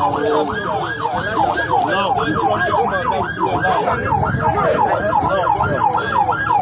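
Emergency vehicle siren in a fast yelp, its pitch sweeping up and down about three or four times a second.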